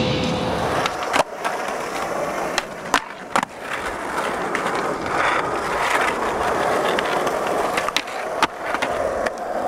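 Skateboard wheels rolling on smooth concrete, broken by several sharp board clacks from pops and landings. Near the end the board slides and scrapes along a concrete curb ledge.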